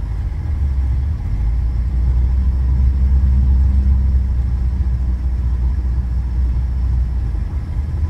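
Low, steady rumble of a car driving, heard from inside the cabin: engine and road noise, a little louder from about a second in.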